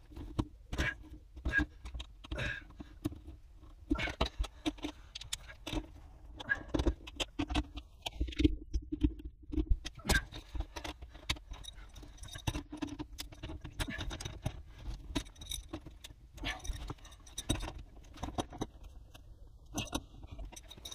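Hands handling heavy battery cables and small metal hardware on a 12-volt wiring board: scattered clicks, taps and light metallic clinks, with a few louder knocks.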